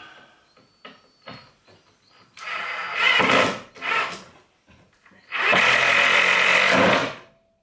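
Handheld power drill-driver running in bursts as it drives screws into the plywood frame: a run of about a second starting two and a half seconds in, a short blip near four seconds, then a longer steady run of about a second and a half.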